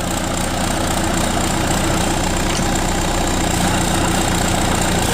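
John Deere 450C crawler dozer's diesel engine running steadily, getting a little louder over the first second and then holding even.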